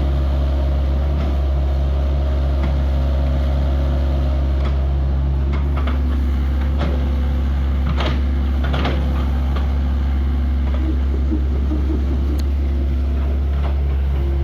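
Excavator running steadily with a deep, continuous hum, and scattered clicks and knocks as it works.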